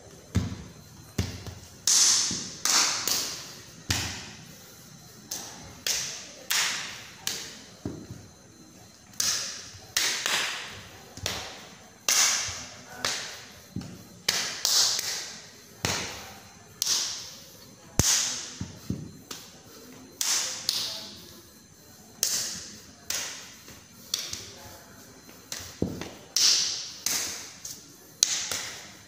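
Sharp slaps and thuds from a silat practitioner's hands striking his body and his bare feet stamping on a tiled floor, coming irregularly about once a second, each with a brief echo.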